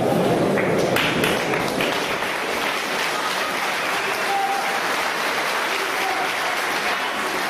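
Crowd applauding and cheering, a steady dense clatter of many hands with a few voices calling out above it.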